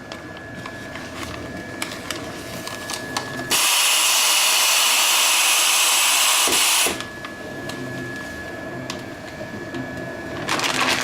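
Continuous band sealer running with a steady motor hum and light clicking. About three and a half seconds in, its gas-flush nozzle blows a loud, even hiss of compressed gas for about three seconds, then cuts off abruptly.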